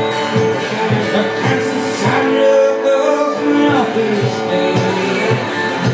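Music led by guitar, with held notes over a steady beat of about two strokes a second.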